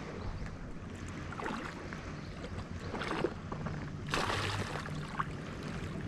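Wind rumbling on the microphone over soft water noise, with a short splash about four seconds in from a hooked black sea bream (chinu) thrashing at the surface.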